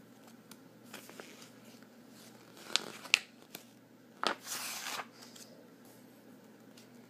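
A picture book's cover and pages being handled and turned: a few sharp clicks and taps about three seconds in, then a brief paper rustle.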